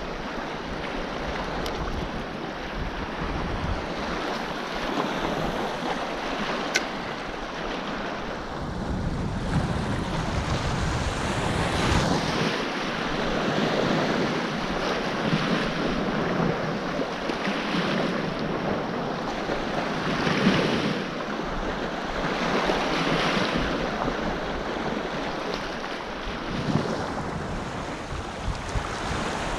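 Small waves washing in the shallows of the sea, in surges every couple of seconds, with wind buffeting the microphone in gusts, strongest about a third of the way in and again near the end.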